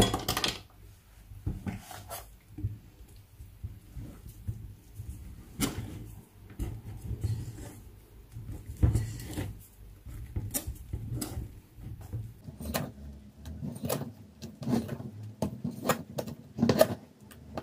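A kitchen utensil clicking, knocking and scraping against a mixing bowl at an uneven pace as mango purée is stirred into the cream mixture bit by bit. A low rumble runs under it and stops about twelve seconds in.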